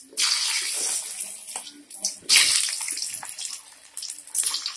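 Peeled water chestnuts dropped into hot mustard oil in a steel kadai, the oil sizzling and crackling as they begin to deep-fry. The sizzle starts suddenly and surges again about two seconds in.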